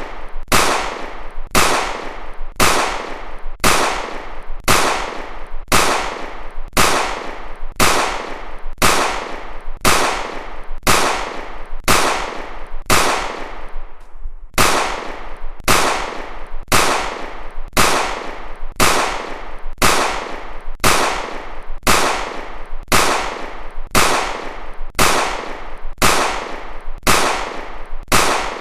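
Pistol gunshot sound effect repeating once a second, each shot sharp with a short fading tail.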